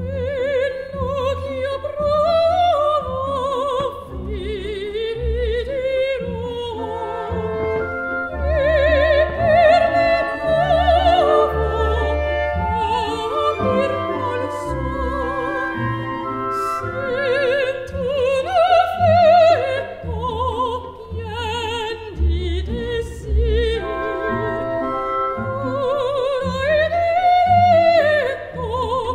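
Operatic singing with a strong vibrato over orchestral accompaniment, with the voice held on long, wavering notes.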